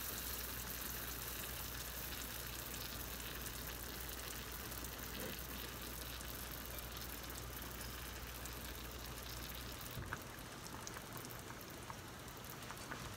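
Faint, steady bubbling of kelp rolls simmering in liquid in a frying pan on a gas burner, as scum is skimmed off the top with a ladle. A low hum underneath stops about ten seconds in, and a couple of light clicks follow.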